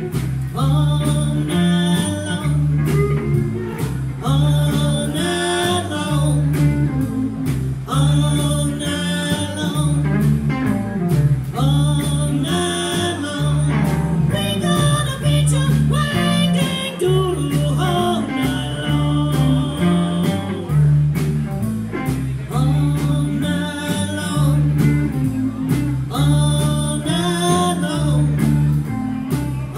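Live blues band: a woman singing into a microphone over electric guitar, electric bass and a drum kit, the bass repeating a steady riff under her sung phrases.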